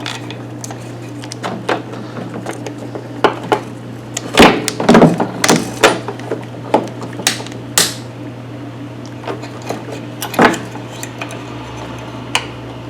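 Hand tools and small-engine parts being handled while the fuel line is pinched off and the gas tank is freed: a string of sharp clicks, clinks and clunks, busiest about four to six seconds in, with another clunk about ten seconds in. A steady low hum runs underneath.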